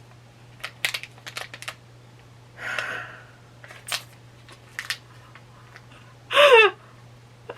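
Small pin blind box and its packaging being opened by hand: scattered clicks and taps, with a short crinkling tear about three seconds in. Near the end, a loud, brief groan falling in pitch, a disappointed reaction to pulling a duplicate pin.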